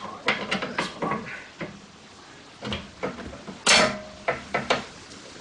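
Metal tools and suspension parts clinking and knocking together while a sway bar link is swapped. There is a quick run of knocks at the start and another cluster a little over halfway through, with the loudest, a short harsh burst, at about three and a half seconds.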